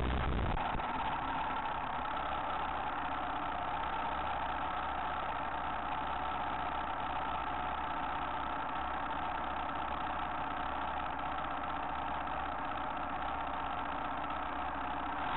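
Off-road motorcycle engines idling steadily at low revs while the bikes wait in a queue on a climb.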